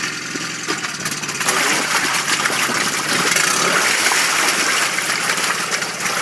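1997 Mariner 9.9 hp four-stroke outboard motor running in a test barrel. About a second and a half in, the throttle opens and the engine speeds up, its propeller churning and splashing the water in the barrel.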